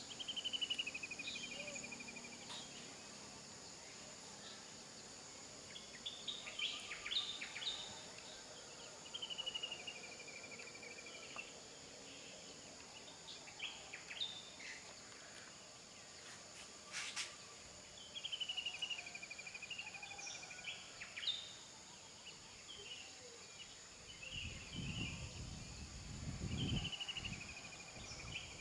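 Birds calling over a steady high-pitched insect drone, with a falling whistled call repeated about every nine seconds among shorter chirps. A low rumble comes in near the end.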